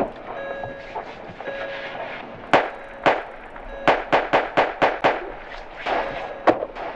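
Gunshots: two shots about half a second apart, then a rapid string of about eight shots in under two seconds, then two more spaced shots near the end.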